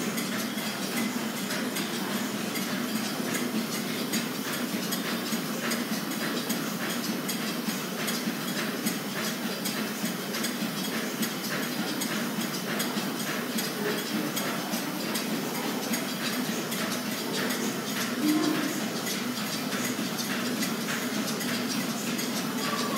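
Small model steam engines running: a steady metallic clatter of pistons, valve gear and crank with a fast, even ticking over a continuous hiss.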